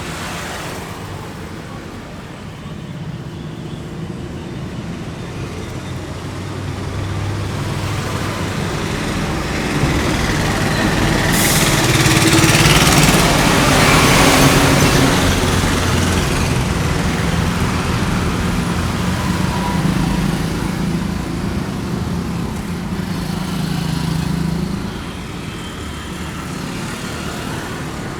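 Road traffic running steadily, with a vehicle passing close and loudest about halfway through.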